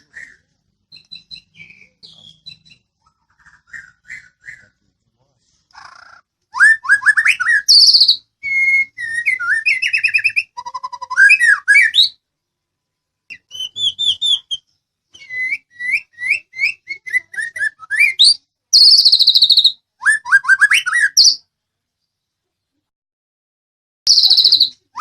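White-rumped shama (murai batu, Medan type) singing. Faint scattered notes open it, then about six seconds in it breaks into loud, varied phrases of clear whistles, rapid trills and sweeping notes that rise and fall. It stops for about three seconds near the end, then starts again.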